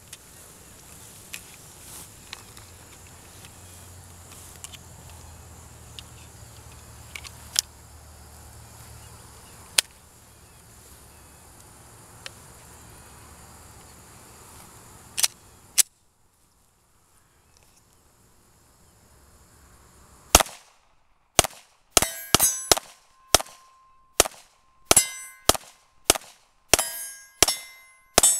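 Stainless Smith & Wesson M&P9 pistol firing a rapid string of about a dozen shots of 115-grain jacketed hollow-point ammunition, starting about 20 seconds in, with bullets striking AR500 steel targets that ring after the hits. Before the shooting there is only faint outdoor background with a few clicks.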